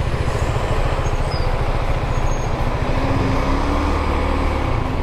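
Motorcycle engine running at low revs with a rapid, steady low throb as the bike rolls slowly in traffic. A steadier hum from nearby traffic joins about three seconds in.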